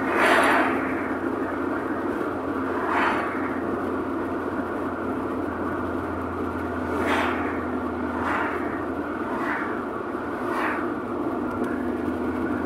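Steady road and engine noise inside a moving car's cabin, with six brief rushes of noise as oncoming vehicles pass close by. The loudest pass comes right at the start.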